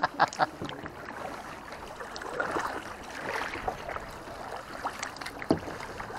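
Water lapping and splashing around a paddled kayak, with a few sharp knocks near the start and one more about five and a half seconds in.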